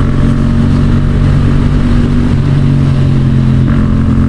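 Yamaha XSR700's parallel-twin engine, fitted with a Yoshimura R77 exhaust, running at a steady pitch while the bike is under way.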